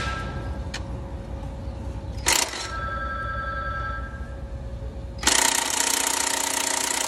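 Cordless impact wrench hammering to loosen the kingpin cap bolts on a truck's steering knuckle. A short burst comes about two seconds in, then a longer burst starts about five seconds in and cuts off suddenly.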